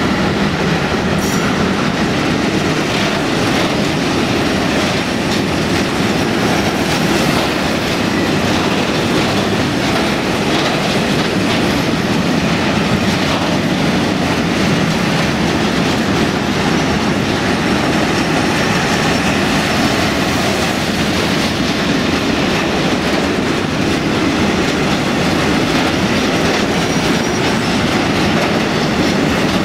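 Freight train of tank wagons rolling past at close range: a loud, steady rumble and clatter of steel wheels on the rails.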